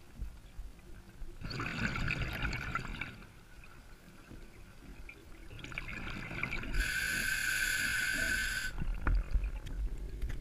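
A scuba diver breathing through a regulator underwater, in two breaths of hissing air and bubbling: one about a second and a half in, and a longer one from about six seconds in whose steady hiss cuts off suddenly.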